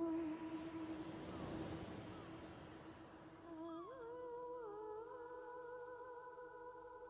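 Slow ambient meditation music of long held, hum-like tones. A soft hissing swell rises and fades over the first three seconds, and about four seconds in the notes bend and move to new pitches.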